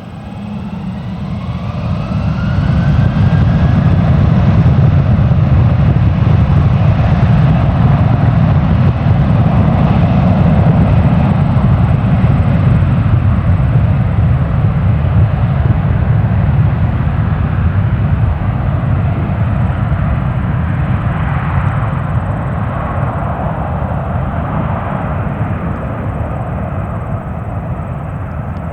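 Airbus A330-223's twin Pratt & Whitney PW4000 turbofans at takeoff power. The roar swells over the first few seconds as a whine rises in pitch, then holds as a heavy low rumble. The higher tones gradually die away and the sound slowly eases as the jet climbs away.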